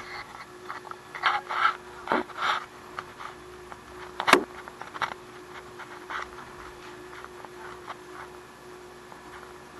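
Irregular rattles, scrapes and knocks inside a vehicle cabin driving on a sand beach, over a steady hum. The sharpest knock comes about four seconds in.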